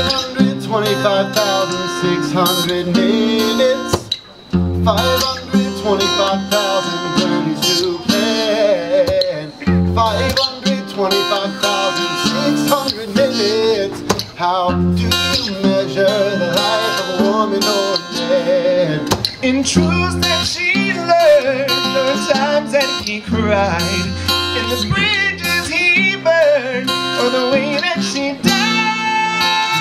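Acoustic guitar strummed live, with a man's voice singing over it and holding a long note near the end.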